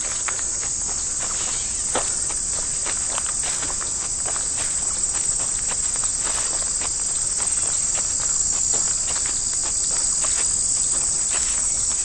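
Steady, high-pitched chorus of late-summer meadow insects, with the footsteps of someone walking along a dirt trail, about two to three steps a second.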